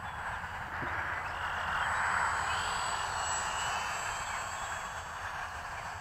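Small electric RC biplane's motor and GWS 5043 propeller buzzing in flight at a distance, swelling about two seconds in and easing off again as it passes.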